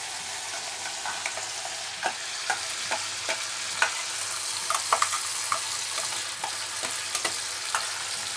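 Spice paste frying in oil in an iron kadai, a steady sizzle, as a wet tomato-ginger-garlic paste is scraped into it from a steel bowl. A metal spatula clicks and scrapes against the bowl and pan many times.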